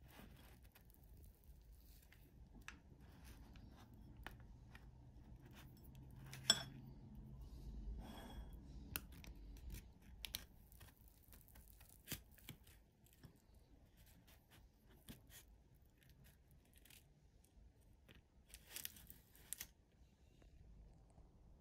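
Quiet, scattered clicks and scrapes of a metal fork cutting into a sponge cupcake on a plate, with the paper cupcake case rustling; one sharper click about six and a half seconds in.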